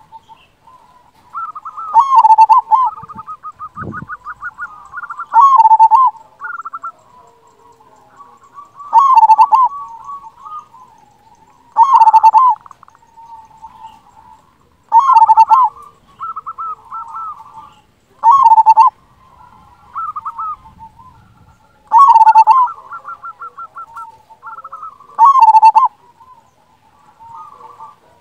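Zebra dove (perkutut) singing loudly: about eight cooing phrases, one every three to four seconds, each ending in a rolling coo, with quicker runs of short notes between some of them.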